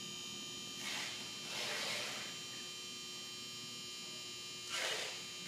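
Steady electrical mains hum, with three soft hissing swells: about a second in, around two seconds, and near the end.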